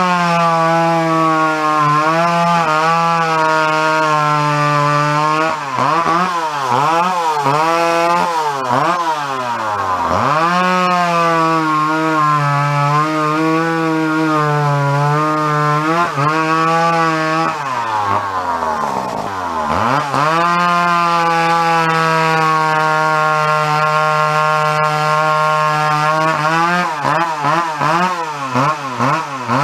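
Mid-1970s McCulloch 850 two-stroke chainsaw with a 32-inch bar and skip-tooth chain, bucking a log. The engine runs hard under load in the cut, its pitch sagging and recovering as the chain bites. It bogs down deeply twice, about ten seconds in and again just before twenty seconds, then climbs back up to speed.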